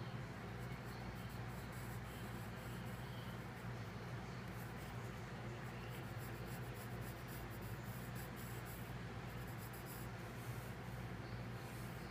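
Wooden graphite pencil sketching on paper, faint scratching strokes, over a steady low hum.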